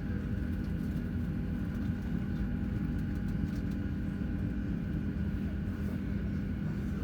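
Steady cabin hum inside a parked Boeing 737-700, a low even drone from the aircraft's systems with a few faint steady tones above it.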